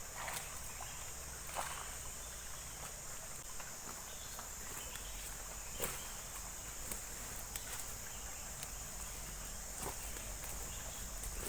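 Steady high-pitched drone of insects, with a few faint scattered clicks and knocks.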